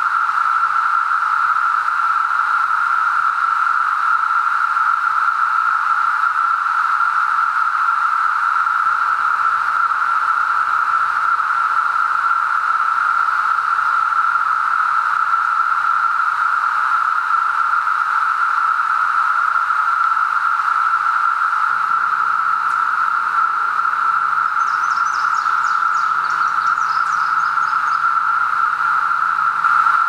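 Dense chorus of Brood XIII 17-year periodical cicadas (Magicicada), a loud, constant hum held at one steady pitch.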